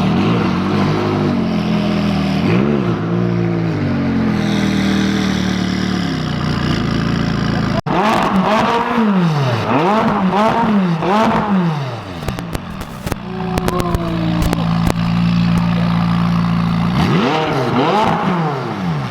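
A car engine idling, then revved repeatedly in quick blips, the pitch rising and falling several times in a row. It settles back to idle and is blipped twice more near the end.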